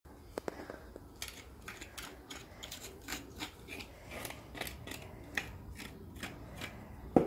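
Hoof knife paring a Friesian horse's hoof during a trim: short, sharp scraping cuts through the horn, about two or three a second. A single louder thump comes near the end.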